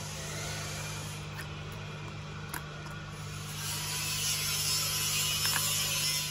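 A few sharp plastic clicks and rubbing as a small rocker switch and its wires are pushed and worked into a plastic housing, over a steady hiss and low hum.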